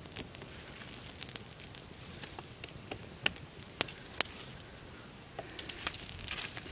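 Small wood fire crackling, with scattered sharp pops, the loudest about four seconds in, and a busier run of crackles near the end.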